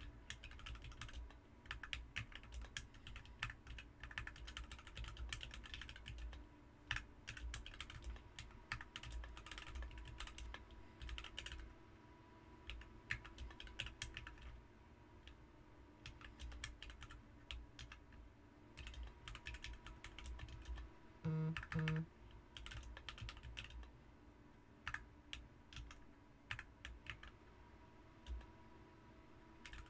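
Typing on a BM43 40% mechanical keyboard with Ms Piggy switches, a steady run of key clicks coming in bursts with short pauses. About two-thirds of the way through come two brief, louder low-pitched sounds.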